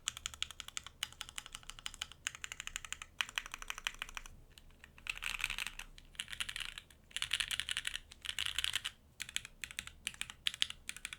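Fast typing on a Keycult 2/65 custom mechanical keyboard: lubed and filmed Alpaca linear switches with 65 g springs, on an aluminium plate, with GMK keycaps and TX stabilizers. Quick runs of keystrokes with short pauses, some bursts so fast the clicks blur together.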